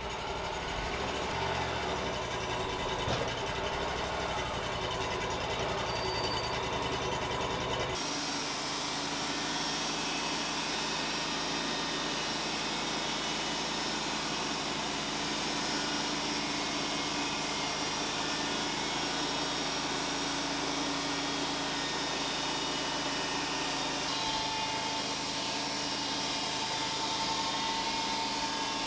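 Wood-Mizer LT35 bandsaw mill running steadily, its engine and band blade sawing through a Douglas fir log, with an abrupt change in tone about eight seconds in.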